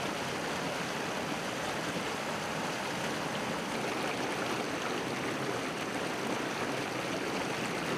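A fast, shallow river rushing over boulders, heard close to the water surface: a steady, even rush of water.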